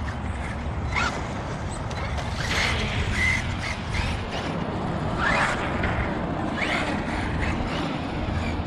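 A 1/8-scale ARRMA Notorious RC car running on concrete: several short rising whines from its electric motor as it accelerates, over a steady low rumble.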